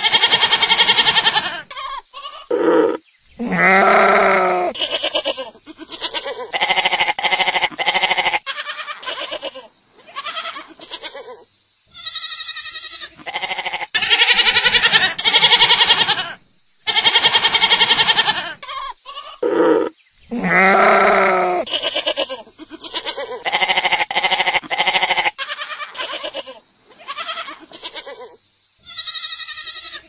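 Goats bleating over and over: a long series of loud, drawn-out calls, each a second or two long with short pauses between them, one of them higher-pitched about twelve seconds in.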